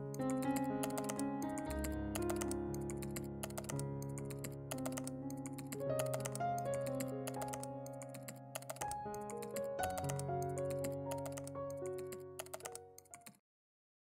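Keyboard typing sound effect, a quick run of key clicks, over soft background music with slow held chords. Both cut off abruptly near the end.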